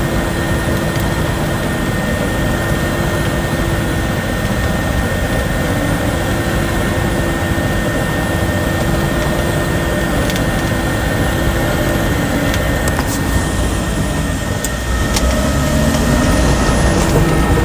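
Caterpillar crawler bulldozer's diesel engine running steadily under load, with a steady high whine over it. About fifteen seconds in, the engine revs up and gets louder.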